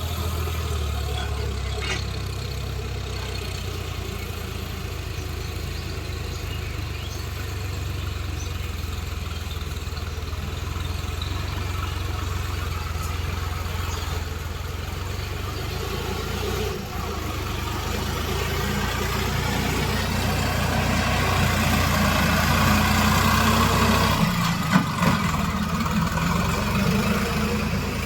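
Heavy diesel engine running steadily, growing louder under load for several seconds past the middle, then easing off, with a few short knocks near the end.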